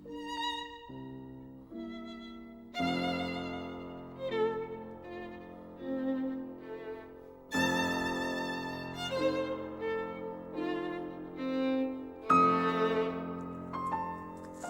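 Background music: a violin playing a slow melody with vibrato over a sustained accompaniment, swelling fuller at several points.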